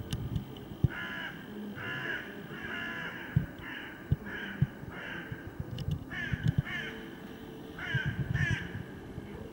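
A crow cawing over and over, harsh calls about one to two a second with a short pause before the last few, and a few low knocks in between.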